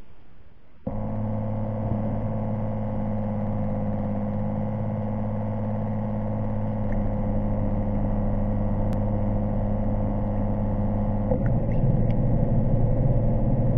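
Underwater drone's electric thruster motors running with a steady hum that starts about a second in. About eleven seconds in, the hum shifts and gets louder.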